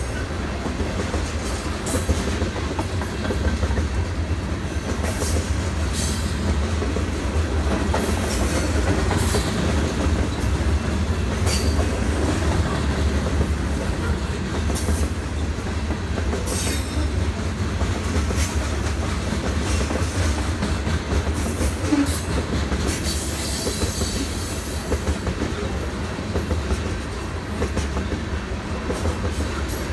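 Freight train of tank cars, boxcars and covered hoppers rolling past: a steady low rumble from the wheels on the rails, with sharp clacks and brief high squeals at irregular moments.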